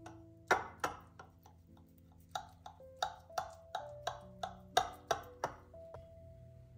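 A knife clicking sharply against a glass baking dish as a baked zucchini gratin is cut, about a dozen taps in two runs, over soft background music.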